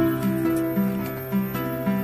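Instrumental background music, a string of held notes changing pitch every fraction of a second.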